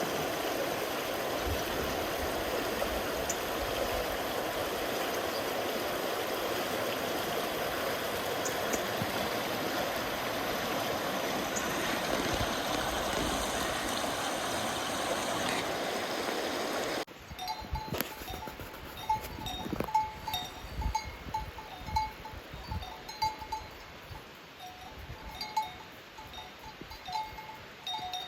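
A steady rushing noise, then after a sudden cut about two-thirds of the way in, livestock bells clanking irregularly, many strikes at a few fixed ringing pitches.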